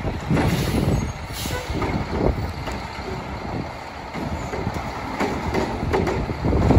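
Mack LEU garbage truck with a McNeilus Contender body working its route: the engine runs with uneven loudness, several knocks, and a short hiss about a second and a half in.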